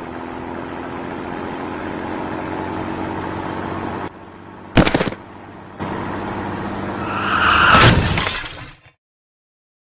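Cartoon sound effects: a steady rumble, a sharp crash about five seconds in, then a swelling, louder crash near the end that cuts off into silence.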